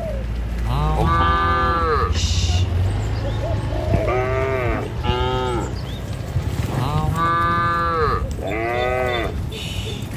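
Cattle mooing again and again: about seven short calls, each rising and falling in pitch, some higher than others, over a steady low rumble.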